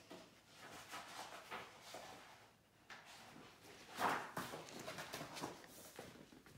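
Faint, irregular rustles and light knocks of things being handled and moved about, loudest about four seconds in.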